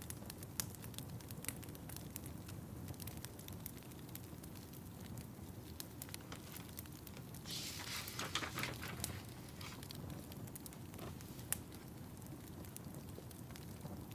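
Fireplace fire crackling: sharp, irregular pops over a low, steady rumble. Just past halfway there is a louder rustling flurry lasting about a second and a half, and a single loud pop comes later.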